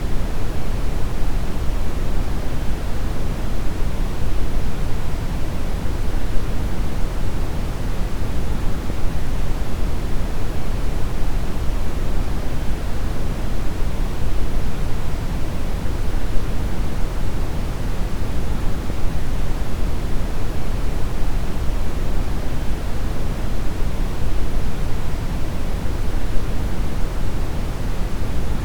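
Steady, unchanging brown noise: a deep, even hiss weighted toward the lows, with no tones or events.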